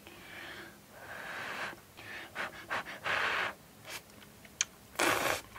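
A person slurping instant ramen noodles off chopsticks in several drawn-out sucking draws, the loudest about five seconds in.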